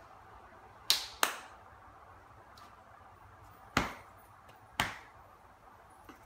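Four sharp slaps of a signer's hands making contact while signing: two in quick succession about a second in, then two more about a second apart, over a low steady room hiss.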